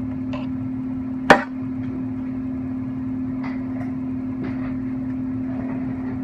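Steady hum, with one sharp knock about a second in, then a few fainter clicks and taps, as of tools being handled on a metal lathe.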